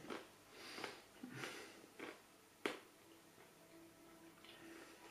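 Near silence in a small room: faint breaths and light handling of a smartphone, with one sharper click about two and a half seconds in.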